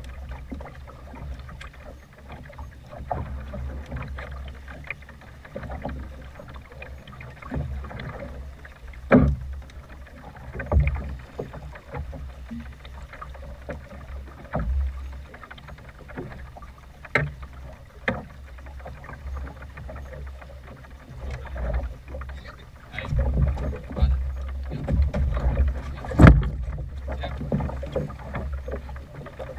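A small boat rocking on a choppy sea: a steady low rumble of wind and water on the camera microphone, with waves slapping the hull in scattered knocks, the loudest near the end.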